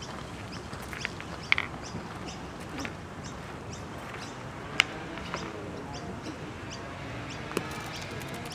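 Birds chirping and calling in short, scattered notes, with a single sharp click about five seconds in.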